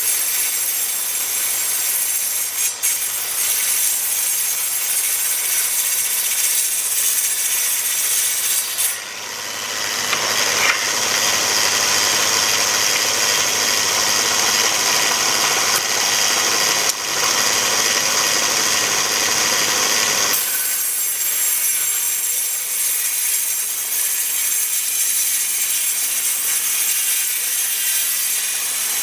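A power woodworking tool cutting rough white oak boards, running steadily. Its tone shifts about a third of the way in and again about two-thirds through.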